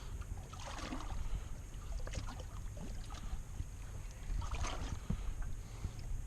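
Small waves lapping and slapping against the boat's hull, under a steady low wind rumble; louder splashes come about a second in and again just before five seconds, with a few light knocks between.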